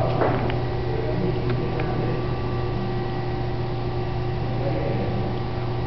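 Steady hum of the lift's 110-volt electric motor and hydraulic pump running, with a few faint clicks about a second in.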